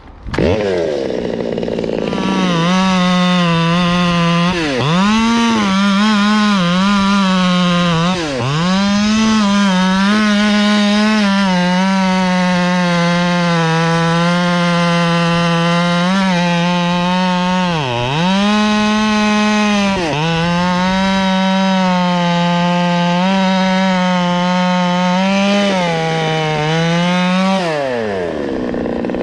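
Stihl 200T top-handle two-stroke chainsaw revving up and running at high speed through a cut in wet oak. Its pitch dips briefly three times, then falls back toward idle near the end.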